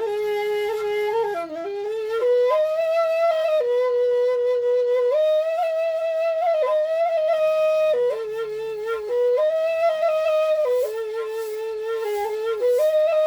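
Balinese suling bamboo flute playing a slow melody of long held notes that step up and down between a few neighbouring pitches, one unbroken line with no pauses for breath.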